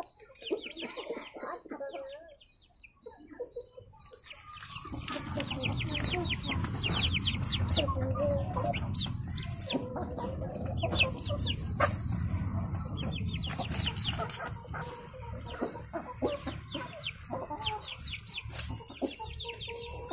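Young chickens clucking, with quick trains of short, high chirps, as they peck at hand-fed grass. A low rumble sits underneath from about four seconds in.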